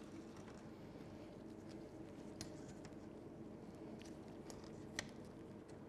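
Faint room tone with a few soft clicks and taps from hands handling things at the worktop, the loudest about five seconds in.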